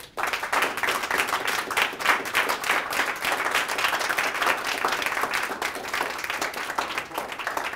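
Audience applauding: many hands clapping densely, starting suddenly and thinning out near the end.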